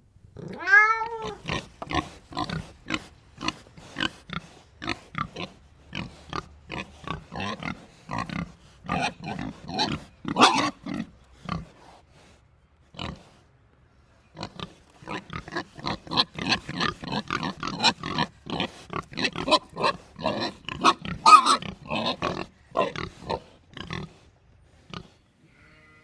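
Pigs grunting and squealing in a rapid run of short calls, one long rising-and-falling squeal about a second in, with a lull of about two seconds past the middle before the calls pick up again.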